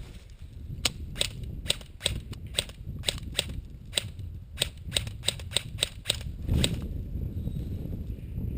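Airsoft shots from an HFC C96 gas pistol: a string of about seventeen sharp, single cracks at roughly three a second, which then stops. Low rumbling handling and movement noise runs underneath and swells after the shots end.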